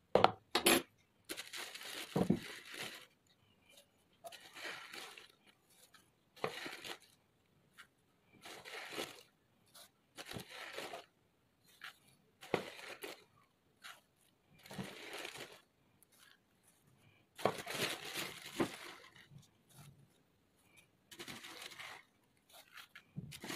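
Hands rubbing melted ghee into flour in a plastic bowl for kahk dough: a rustling scrape that comes in strokes about every two seconds.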